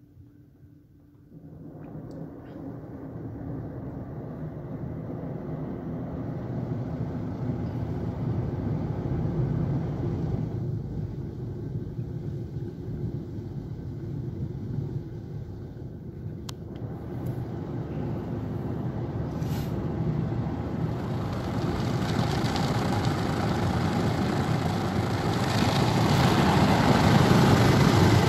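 Rotating foam brushes of a Mark VII ChoiceWash XT soft-touch car wash scrubbing over the car's body and windshield, with the wash machinery's rumble, heard from inside the car. The scrubbing noise sets in suddenly about a second and a half in and builds, loudest near the end as a brush sweeps across the windshield.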